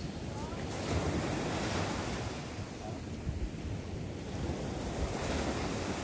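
Wind gusting across the microphone over the wash of Lake Michigan waves: a steady rushing noise that swells slightly about a second in and again near the end.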